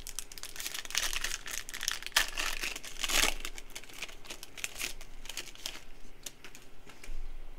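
Foil wrapper of a Panini Prizm football card pack being torn open and peeled off the cards: a dense run of sharp crinkling and crackling, loudest from about a second in to just past three seconds, then thinning out.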